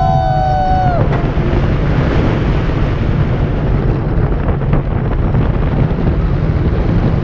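Steel roller coaster train running at speed over its track, with heavy wind buffeting the on-board microphone. A rider's scream, held for about a second, at the start.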